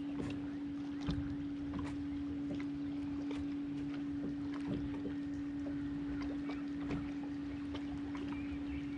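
Bass boat's electric trolling motor humming steadily at one pitch, with scattered light ticks and water noise around it.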